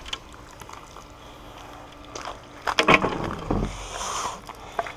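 Wet glass-topped metal patio table being flipped upright and set down on a concrete deck: quiet at first, then a few knocks and clatters of the frame from about two seconds in, the loudest near three seconds.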